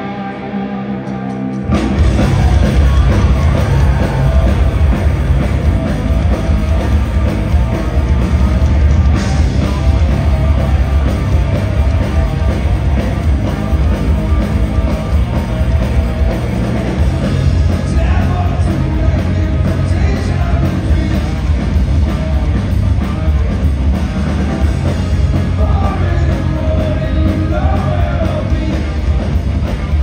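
Live rock band recorded from the crowd: a lone electric guitar, then about two seconds in the full band comes in loud with distorted guitars, bass and drums, and vocals over it.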